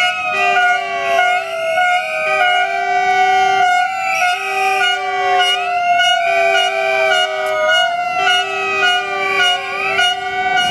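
Electronic siren sounding in a repeating rise-and-fall cycle about every two seconds, with a steady lower note pulsing on and off in time with it.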